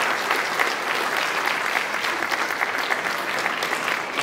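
Audience applause: many people clapping steadily in a large hall, easing a little near the end.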